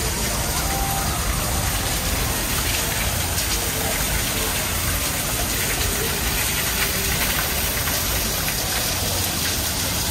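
Steady rush of water falling and splashing in a garden grotto's waterfall and pool.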